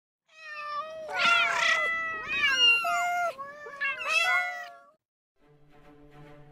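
Cats meowing: several drawn-out meows that overlap and rise and fall in pitch, lasting about four and a half seconds. After a short pause, steady background music begins quietly near the end.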